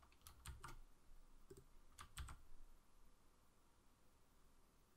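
Faint computer keyboard keystrokes, about six clicks in small groups during the first two and a half seconds.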